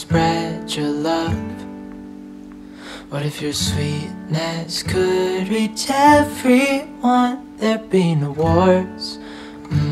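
Background music: a gentle song with acoustic guitar under a wavering sung vocal line.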